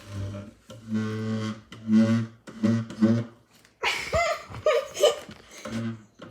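A chair giving out a low, didgeridoo-like droning tone in short bursts about half a second long, five in the first three seconds and once more near the end. In between comes a higher, wavering, rougher sound of about a second and a half.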